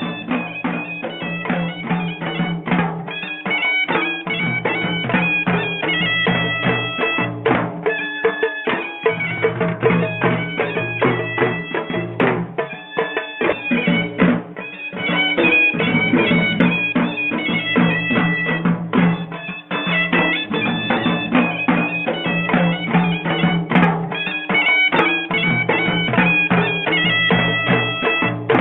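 Instrumental intro music: a wind-instrument melody over a steady held drone, with drum beats throughout.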